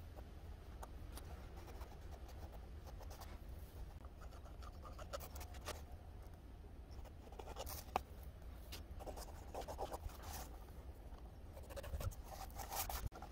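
Faint scratching of a mechanical pencil drawing lines on paper, guided along a plastic French curve, in short irregular strokes with a few light clicks as the template is shifted. A steady low hum lies underneath.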